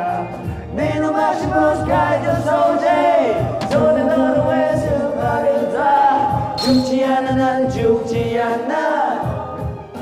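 Two young men singing an upbeat song together into microphones over a karaoke backing track.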